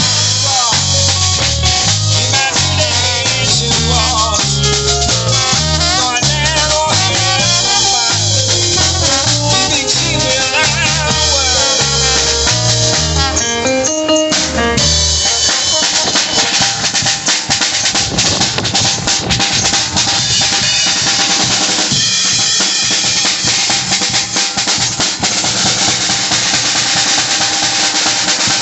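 Live New Orleans-style band with drum kit, walking bass line and keyboard playing together. About halfway through the bass and keys drop out, leaving the drum kit playing alone in a drum solo, busy with snare and rimshot strokes.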